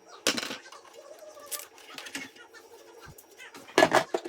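Handling noise from a thin metal shield plate being worked off a computer's chassis: a sharp clack just after the start, a few light clicks, then several louder clatters near the end.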